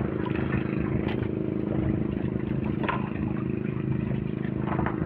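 Small boat engine running steadily at an even pitch, with a few light knocks.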